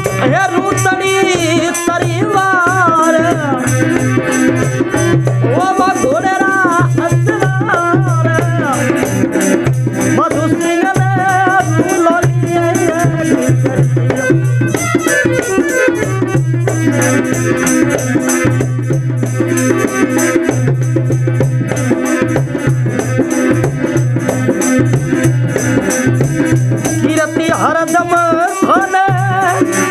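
Folk devotional music: a dholak drum and khanjari jingles keep up a steady, fast rhythm. A wavering melody runs over it in the first third and comes back near the end.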